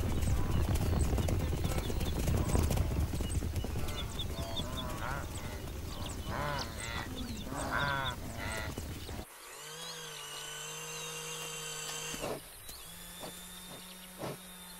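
A wildebeest herd is on the run: a dense rumble of hooves with repeated calls from the animals and their calves. About nine seconds in, this cuts off suddenly. A steady low buzzing drone and high whistling notes follow.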